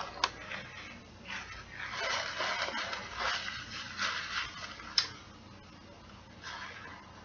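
Close-up eating sounds: chewing a sandwich and a paper napkin rustling as it wipes the mouth, patchy and irregular for a few seconds, with a sharp click about five seconds in.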